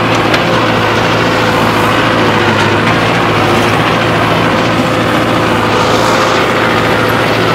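Tractor diesel engine running steadily at an unchanging speed.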